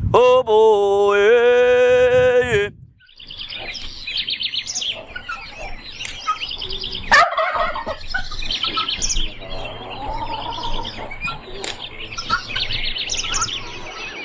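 A man's aboio, the wordless cattle-herding chant, on long held notes, breaks off about three seconds in. Many birds then chirp and call, with one louder, lower call about seven seconds in.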